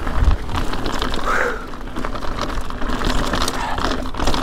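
Ibis Ripmo mountain bike rolling fast down loose, rocky dirt singletrack: tires crunching and rattling over the ground with rapid clicking from the drivetrain and freewheel, over a low wind rumble on the helmet-camera microphone. A bump thumps just after the start.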